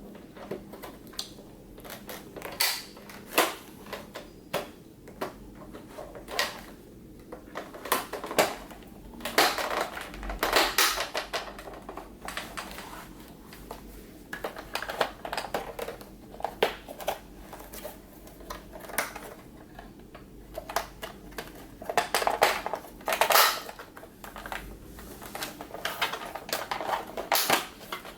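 Plastic clips of a car's center armrest lid popping and clicking as a plastic squeegee pries the plastic backing piece off the leather cover, with irregular sharp clicks and a few longer stretches of scraping and creaking plastic.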